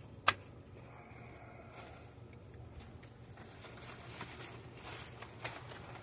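Hand pruning shears snipping and grape leaves rustling as clusters are cut from the vine. A sharp snip just after the start is the loudest sound; it is followed by light, irregular rustling and a second, softer snip near the end.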